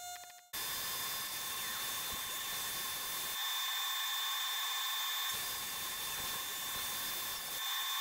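Steady machine noise, a hiss with a few held high whining tones, starting about half a second in; its low rumble drops away for a couple of seconds twice.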